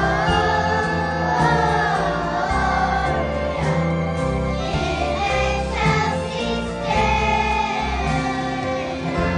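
A choir singing a sacred Christmas song over instrumental accompaniment, with sustained low notes underneath.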